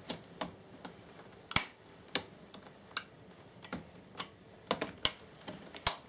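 Irregular sharp plastic clicks and taps as a Stanley knife blade pries at the clips holding a Toshiba laptop keyboard in place, about a dozen clicks, the loudest about a second and a half in.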